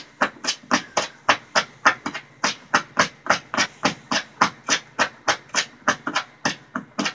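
A small dog panting rapidly and evenly, about four breaths a second.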